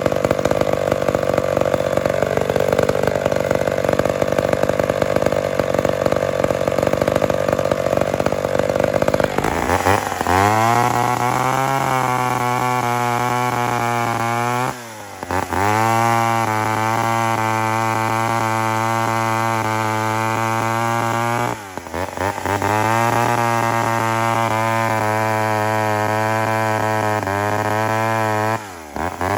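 Two-stroke McCulloch Mac 10-10 chainsaw engine, rough and noisy for the first nine seconds or so, then running at high revs in three steady stretches, each broken by a brief drop. The saw is short of power and has a miss, which the owner puts down to an ignition fault such as the coil or points.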